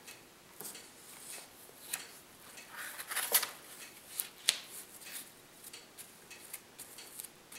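Scattered light scrapes and rustles of a spatula spreading contact cement on the layout base and a Woodland Scenics grass mat being laid back down and pressed flat by hand, with sharper ticks about three and four and a half seconds in.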